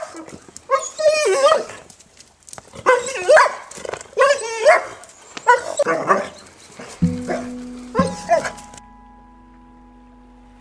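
A dog barking repeatedly, each bark drawn out with a wavering pitch. About seven seconds in the barking stops and acoustic guitar music starts, two strummed chords ringing on.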